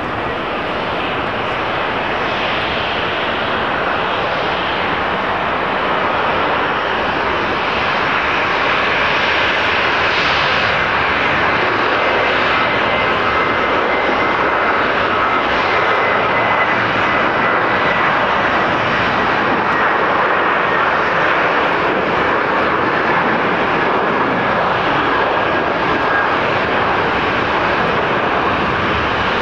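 Twin CFM56-7B turbofan engines of a Boeing 737-800 running at takeoff thrust on the takeoff roll: a steady rushing jet noise that grows louder over the first several seconds, with a high fan whine in the middle of it that sinks slightly in pitch.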